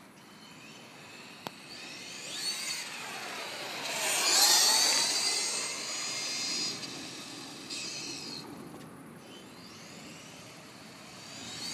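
Electric motor and drivetrain of a 1:16-scale Revo RC truck whining at high pitch, sweeping down and up as it slows and speeds up. It is loudest about four seconds in, with a second, weaker sweep later on.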